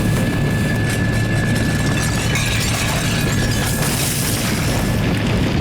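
Loud, steady, low rumbling drone with a thin high whine held over it: a TV sound effect of stacked amplifiers blasting a low-frequency tone at full volume.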